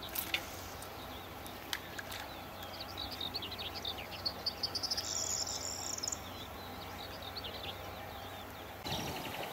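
Small birds chirping and calling, the calls coming thickest around the middle, with a few faint clicks near the start.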